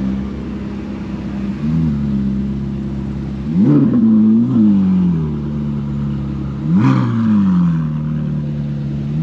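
A car engine idling and being revved with throttle blips: a small blip a couple of seconds in, two quick revs in a row near the middle, and a sharper, louder rev about three quarters through, each falling back to idle.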